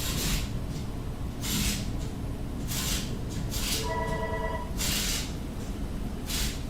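Telephone ringing: a short electronic ring about four seconds in, repeating the one just before. Over a steady low rumble, several short, loud bursts of hissing come at irregular intervals.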